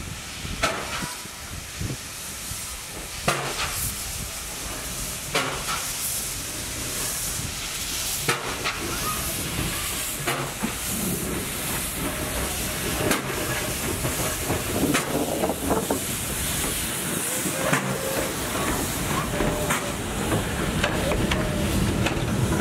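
Steam locomotive hissing steam, with scattered sharp knocks and clanks; the noise slowly grows louder.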